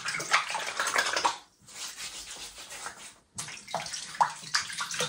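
Water splashing at a sink as the face is washed with a shampoo bar before shaving, in three stretches broken by short pauses.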